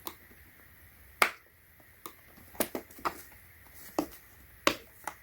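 Plastic keyboard being handled on a table, giving about eight sharp clicks and light knocks at irregular intervals.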